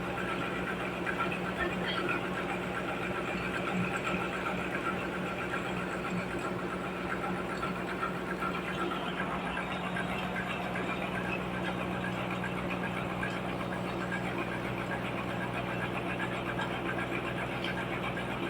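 Sawmill machinery running steadily: a constant drone that holds one pitch throughout.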